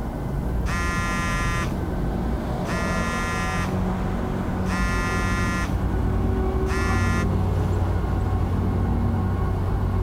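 Samsung smartphone in a car dashboard mount ringing with an incoming call: four buzzy rings about a second long, two seconds apart, the last cut short when the ringing stops. A steady low rumble lies underneath.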